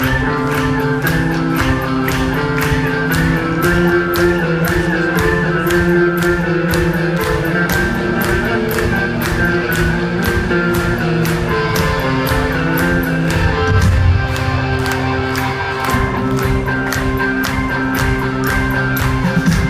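Live rock band playing an instrumental passage: guitars over a steady drum beat, with no vocals.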